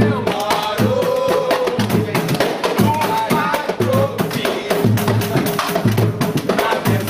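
Brazilian pagode played live on samba percussion, with a deep drum beat about once a second under fast clicking hand percussion, and voices singing over it.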